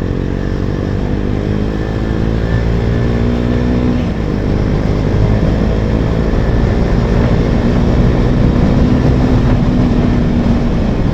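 KTM Duke 250's single-cylinder engine running under way through an aftermarket exhaust: the note climbs slowly for about four seconds, changes abruptly about four seconds in, as at a gear change, then holds a steady pull.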